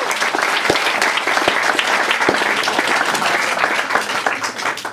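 Audience applauding, dense clapping that fades away near the end.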